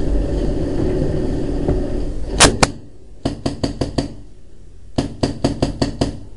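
Paintball marker firing. A steady rumbling noise runs first, then two sharp shots come about two and a half seconds in, followed by two quick strings of shots, about five and then about seven, at roughly six to seven a second.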